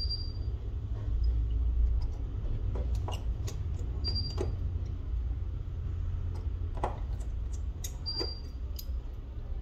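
Scattered light clicks and taps of small repair tools working on a phone, over a steady low rumble, with a brief high beep three times about four seconds apart.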